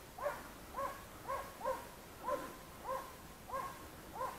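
Hunting hounds baying on the trail of wild boar: a steady string of barks, about two a second, each rising and falling in pitch.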